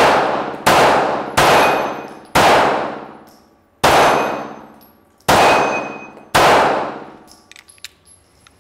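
Seven 9mm shots from a Ruger Security 9 Compact pistol, fired at an uneven pace, each ringing out in the indoor range's reverberation; a few faint clicks near the end.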